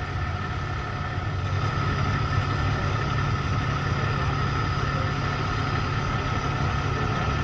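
Fire alarm sounding a continuous high tone over a steady low rumble.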